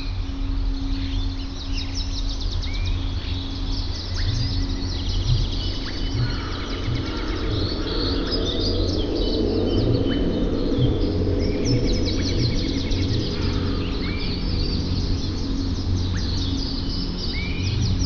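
Small songbirds chirping and trilling busily throughout, with now and then a short whistle that bends upward, over a steady low rumble.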